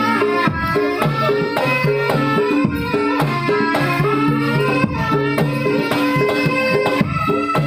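Traditional Javanese music for a jaran kepang (kuda lumping) horse dance: hand-drum beats over ringing struck metal notes that repeat in a steady pattern.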